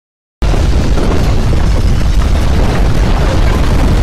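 Loud, deep rumble of a simulated earthquake, cutting in abruptly out of silence about half a second in and running on steadily.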